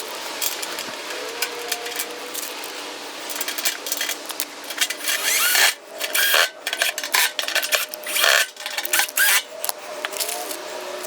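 Screws being driven into the raised-bed kit's panels with a power drill: the motor whirs in stretches among frequent sharp metallic clicks and clatter.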